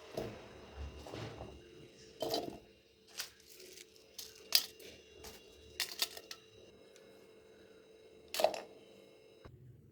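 Kitchen handling noises: irregular sharp knocks and clicks, about half a dozen loud ones, with some rustling between them. A faint steady hum underneath stops about nine and a half seconds in.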